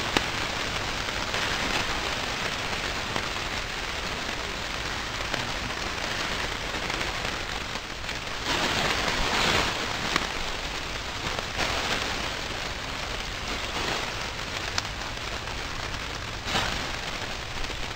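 Beef burger patties sizzling on the hot grate of a kamado grill: a steady frying hiss that swells a little about halfway through.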